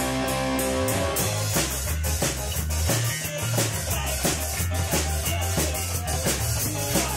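Ska band playing live in a garage: drum kit, electric guitars and bass guitar. It opens on held chords, and the drums come in with a steady beat about a second in.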